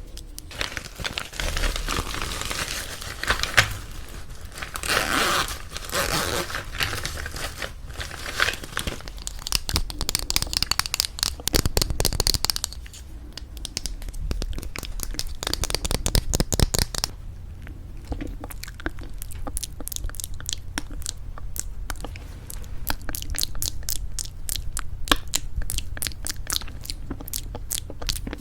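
Close-up ASMR handling sounds: crinkly rustling for roughly the first twelve seconds, then rapid fingernail tapping on lipstick cases, quick sharp taps that grow dense in the second half.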